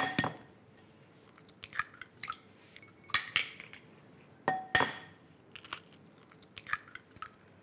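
Two eggs tapped on the rim of a glass mixing bowl and broken open by hand: sharp taps on the glass, the loudest at the start and again about four and a half seconds in with a short glassy ring, and small crunches of eggshell between them.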